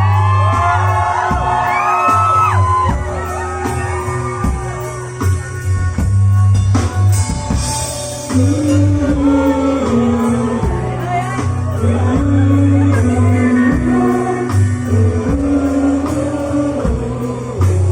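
Live rock band playing, with singing over a steady bass line.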